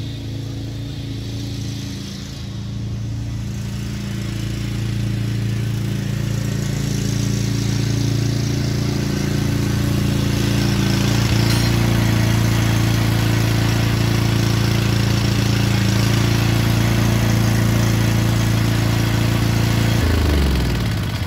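Craftsman T210 riding mower's engine running steadily while the mower is test-driven after a drive-belt replacement, with the cutting deck removed so no blades are turning; it gets louder as it comes closer. About twenty seconds in the engine is shut off and winds down.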